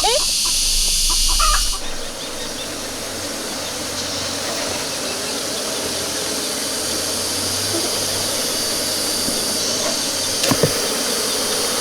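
Chickens clucking in the first couple of seconds, then a steady humming haze, broken by one sharp click near the end.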